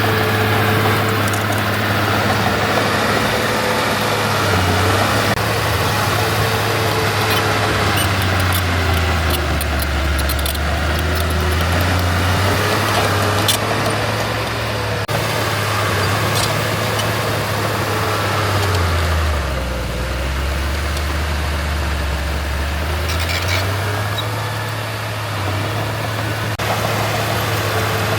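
Heavy diesel earthmoving machine running steadily. Its engine note drops a few times, most deeply twice, as it lugs under load and then picks back up, with scattered metallic clicks and rattles.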